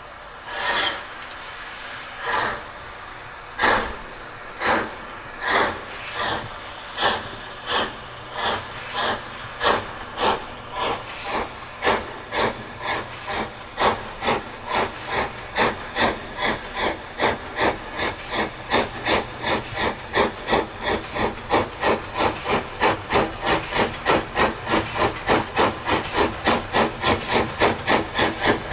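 LMS Fowler 4F 0-6-0 steam locomotive 44422 pulling away from a standstill: its exhaust chuffs start slow, about one every second or so, and quicken steadily to around two or three a second, growing louder as it comes on.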